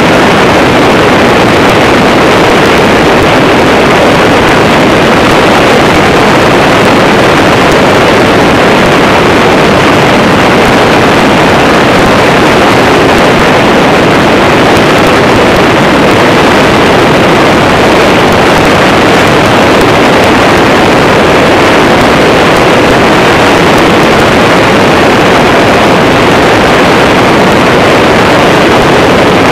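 Ultralight trike (motorized hang glider) in flight: its engine and propeller running steadily, mixed with wind rushing over the microphone, loud and unchanging.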